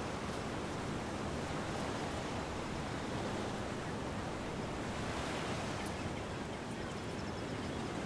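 Ocean surf washing on a beach: a steady rushing wash of waves, with one wave swelling a little about five seconds in.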